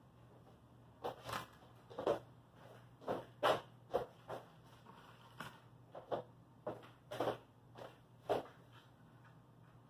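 About a dozen short, irregular scraping and rustling sounds, like hands working at wood, with a faint steady low hum underneath.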